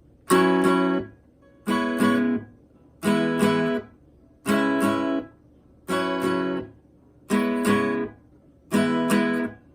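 Acoustic guitar playing the song's intro: seven strummed chords about a second and a half apart, each a quick double strum that dies away within a second.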